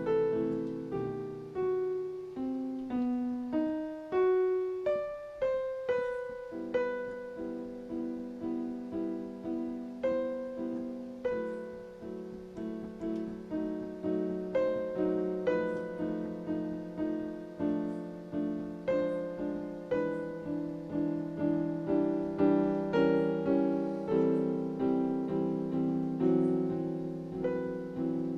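Solo piano playing a slow prelude: a melody over repeated chords, each note struck and ringing away.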